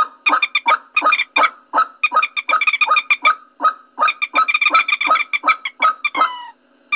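Common moorhen calling: a fast series of short, honking notes, several a second in runs, ending with a few gliding notes and stopping about six and a half seconds in. This is a moorhen lure call (suara pikat).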